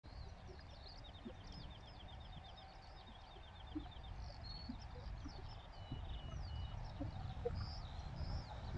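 Small songbirds chirping and calling, with fast trilled runs of repeated notes, over a low steady rumble that grows a little louder toward the end.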